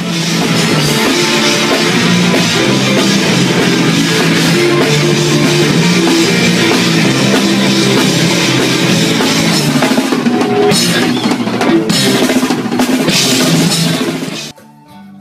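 Loud rock music: a full drum kit with bass drum and snare driving under an electric guitar riff, cutting off abruptly near the end.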